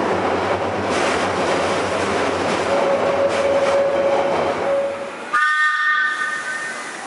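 Passenger train running on the rails, a loud, even rumble with a steady whine for a couple of seconds in the middle. Just past five seconds in, the sound changes abruptly and a train horn sounds once for under two seconds.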